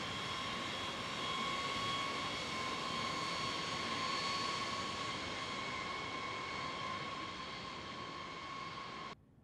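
B-52H Stratofortress's eight TF33 turbofan engines running as the bomber rolls past on the runway: a steady jet rush with a high whine that slowly fades, then cuts off abruptly near the end.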